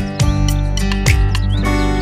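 Background instrumental music with plucked, guitar-like notes and a few short high chirps.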